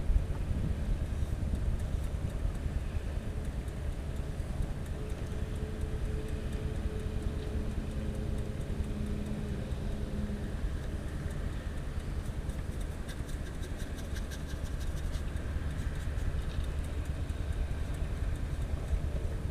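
Steady low rumble of freeway traffic. An engine tone rises out of it for several seconds around the middle.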